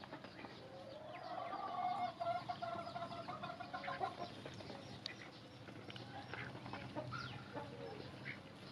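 Chickens clucking, with one drawn-out call held from about a second in until about four seconds in. Scattered short clicks follow as ducks peck grain from a plastic trough.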